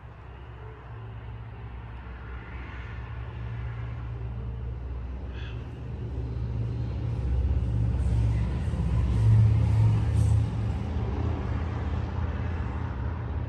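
A low rumble that builds up, is loudest a little over two-thirds of the way through, then eases off.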